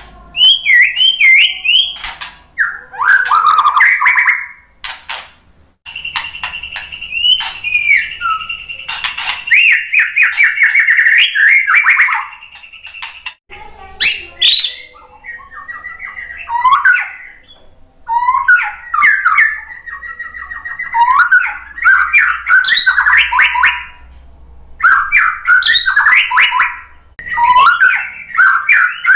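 White-rumped shama singing loudly: varied phrases of fast repeated whistled notes and trills, with one long held whistle near the middle, broken by sharp clicks.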